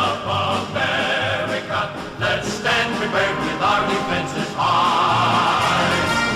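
Music with choral singing: several voices holding long wavering notes over a steady bass.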